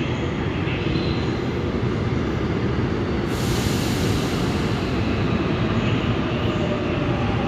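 Seoul Subway Line 6 train entering an underground station, a steady low rumble of wheels and running gear, with a burst of hiss about three seconds in.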